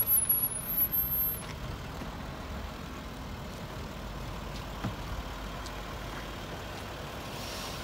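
A car engine idling, a steady low rumble, with a few rough bursts of noise in the first second and a half.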